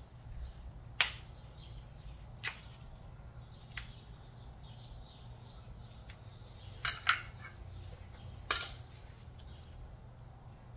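Sharp little clicks of small hardware being handled by hand, about six in all, with two close together a little past the middle, over a faint steady hum.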